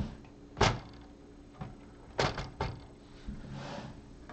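LEGO plastic bricks knocking and clicking against each other as a large built assembly is set onto the model: one sharp knock about half a second in, then three quick clicks a little past two seconds, and a soft brief rustle near the end.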